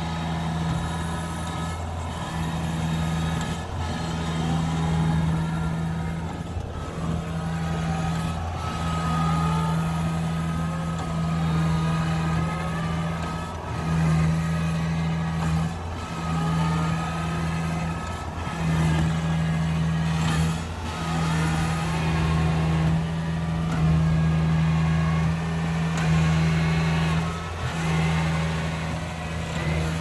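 Kubota rice combine harvester's diesel engine running steadily under load as the tracked machine crawls through deep paddy mud, its hum dipping briefly every couple of seconds.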